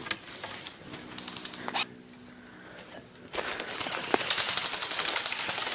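Airsoft guns firing on full auto, a rapid clatter of clicks. A short burst comes about a second in, then a longer, louder burst starts just past halfway.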